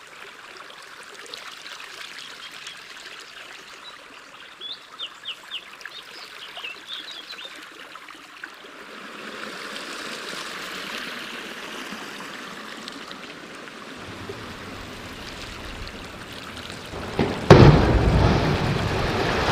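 Water running and trickling through a canyon, with a few short high chirps about five seconds in. Near the end a much louder rush of water comes in suddenly.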